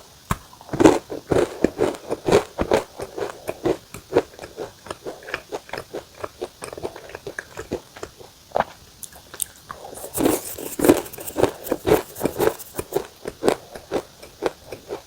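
Close-miked crunching and chewing of a crisp cookie or biscuit, many quick irregular bites and crunches, with a brighter, harsher stretch of crunching about ten seconds in.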